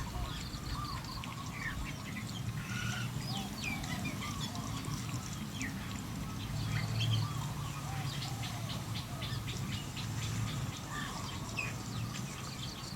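Many short bird chirps and calls, scattered irregularly over a steady low rumble.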